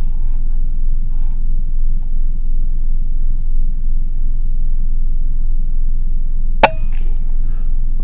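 A single sharp shot from a .22 AGT Uragan PCP air rifle about six and a half seconds in, with a brief ring after it, over a steady low rumble.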